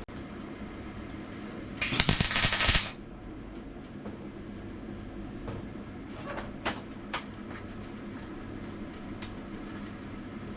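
A MIG welder laying a tack on sheet steel: one loud crackling burst of about a second, about two seconds in, over a steady hum, followed by a few sharp clicks. The welder is feeding badly and breaking up.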